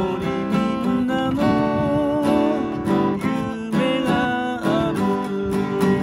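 Acoustic guitar strummed in a steady rhythm, with a man's voice singing held, wavering notes over it in places.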